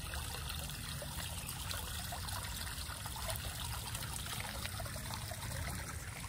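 Water trickling steadily, with a low rumble underneath.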